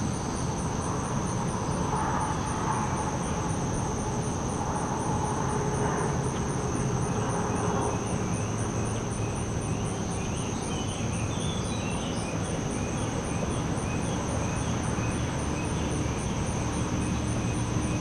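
Crickets calling: a steady high trill with a second, pulsed chirp above it repeating about three times a second. Underneath is a low steady rumble and the hiss of shallow water trickling over rocks.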